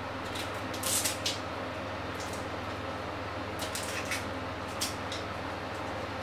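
Boiled eggshells crackling as they are peeled off by hand: a scatter of short, sharp, scratchy crackles over a steady low hum.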